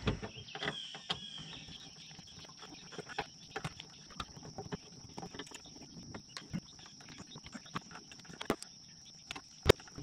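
Scattered light clicks, scrapes and small knocks of hands and a screwdriver working a metal outlet box loose from its wiring, with one sharper knock near the end. A faint steady high-pitched whine runs underneath.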